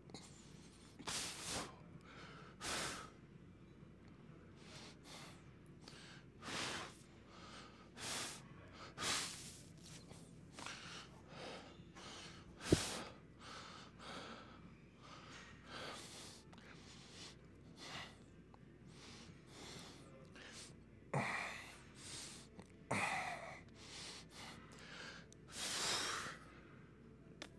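A man breathing hard through a run of bodybuilding poses: sharp, noisy exhalations and gasps every second or two, the strain of flexing. One sharp click about halfway through.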